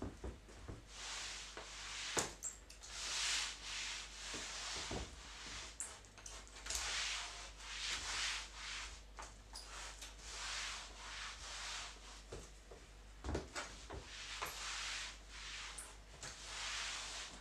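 Mop wiping across a hard floor in repeated swishing strokes about a second long, with a few sharp knocks in between.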